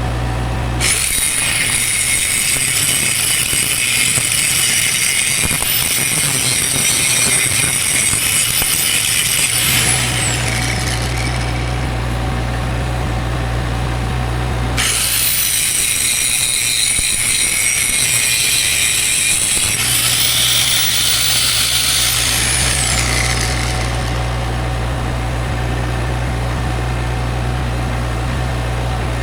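Angle grinder grinding steel in two long runs, each ending in a falling whine as the disc spins down. This is grinding out weld cracks before rewelding. An engine idles steadily in the pauses.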